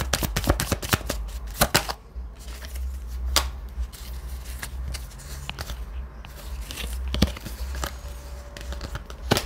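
A deck of divination cards being shuffled by hand: a quick run of card flicks over the first two seconds, then a few single card snaps as cards are handled and drawn.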